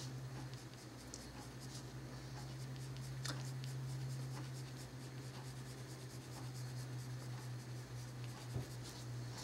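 Colored pencil stroking lightly across paper, soft scratchy strokes laid down with barely any pressure, over a steady low hum.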